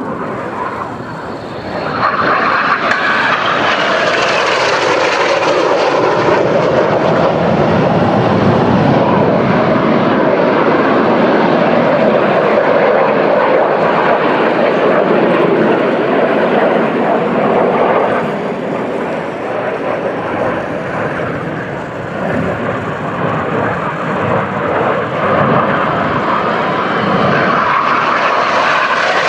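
Roar of BAE Hawk T1 jets passing over in display flight. The jet noise swells sharply about two seconds in, eases somewhat past the middle and builds again near the end.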